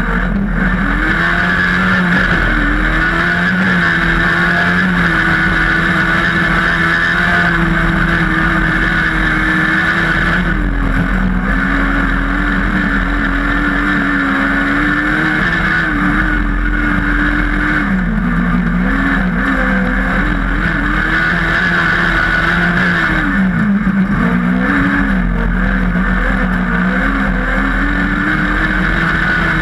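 Onboard sound of a 500B-class single-seat autocross buggy's engine running hard on a dirt track. Its pitch holds high on the straights, drops briefly several times when the driver lifts for a corner, then climbs again. A constant rush of wind and dirt runs under the engine.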